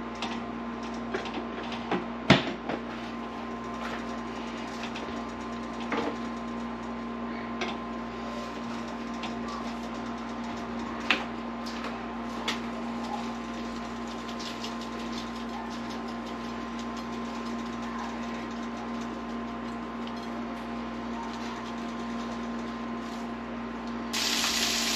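A steady appliance hum under light clicks and knocks as spice shakers and a plate are handled while fish pieces are seasoned. Just before the end, a sudden sizzle as fish pieces fry in a pan.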